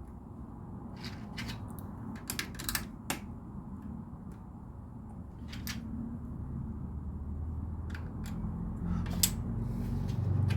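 Small plastic LEGO pieces clicking and tapping as they are handled and pressed into place: scattered sharp clicks, over a low rumble that grows louder near the end.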